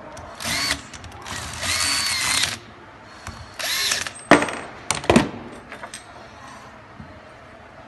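Electric screwdriver turning screws in a sheet-metal bracket in three short runs, the motor whine rising as each run starts, the middle one the longest. A few sharp clicks follow around the middle.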